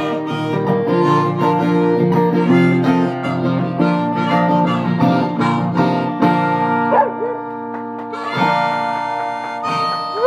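Acoustic guitar strumming under a harmonica playing long held chords. About seven seconds in the strumming thins out and a dog begins to howl along with the harmonica, a brief wavering cry.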